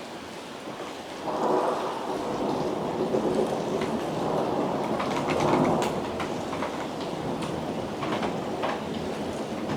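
Thunder rumbling over steady rain during a heavy thunderstorm, the rumble swelling about a second in and again near the middle.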